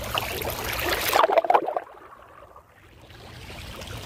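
Flowing floodwater, rising to a louder splashing about a second in. Then the sound abruptly goes dull and much quieter for about a second before slowly coming back.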